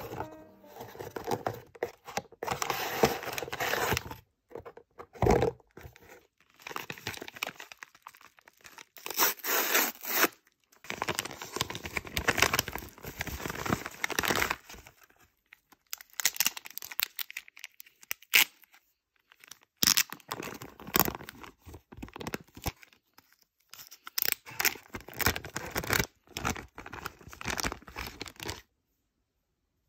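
Packaging being handled and opened by hand: a cardboard box, a paper padded mailer and a plastic bag rustling, crinkling and tearing in irregular bursts with short pauses, stopping shortly before the end.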